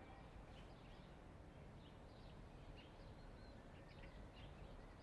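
Near silence: faint background ambience with a low steady hum and scattered small high chirps, a few each second.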